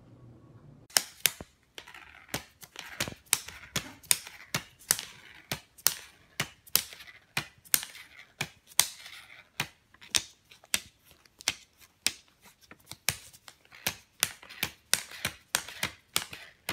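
Crisp, irregular snapping and crackling, two or three snaps a second, of stiff plastic Canadian $100 banknotes crinkling as a tabby cat noses and paws through them.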